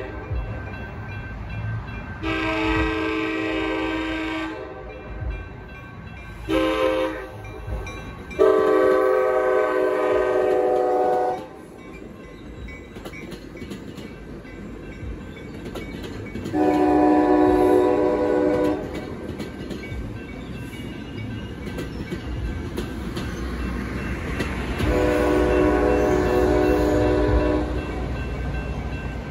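Horn on the lead cab car of an Altamont Commuter Express push-pull train sounding for the grade crossing: a long blast, a short one and a longer one in the first twelve seconds, then two more long blasts. Under the horn, the bi-level train's wheels rumble and clack over the crossing as it rolls through.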